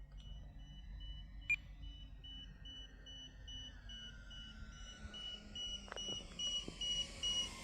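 Rapid electronic beeping from the RC gear, short high beeps at about three a second, over a faint whine that slowly drops in pitch.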